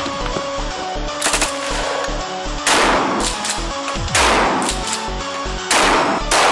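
Pump-action shotgun firing about four shots, roughly a second and a half apart, each followed by a reverberating tail, over electronic music with a steady beat.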